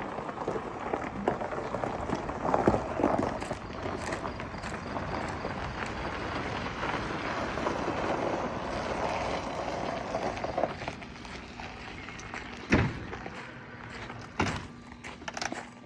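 Steady rolling, scuffing noise of a vehicle being pushed by hand, with two sharp knocks near the end.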